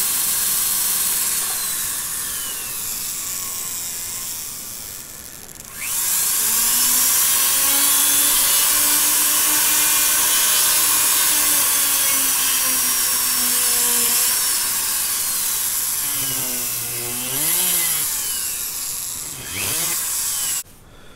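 Foredom flex-shaft rotary carver spinning a green cone-shaped abrasive bit against wood, a high whine. It winds down a couple of seconds in and drops out briefly, spins back up to a steady whine, slows and wavers near the end, speeds up again and cuts off suddenly.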